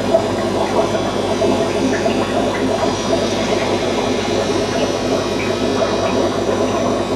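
Aquarium pump humming steadily, a constant electric buzz.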